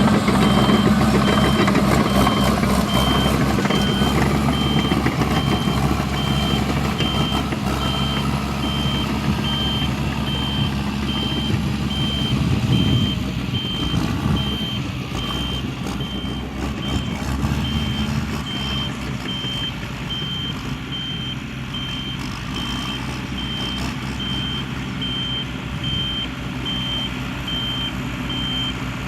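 Reversing alarm on a heavy vehicle beeping at one steady pitch, about two beeps a second, over the vehicle's diesel engine running, which is louder in the first half and eases off partway through.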